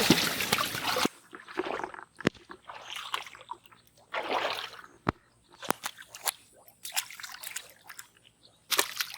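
Muddy canal water splashing and sloshing in short, separate bursts, with a few sharp clicks between them. The first second is louder and then drops off suddenly.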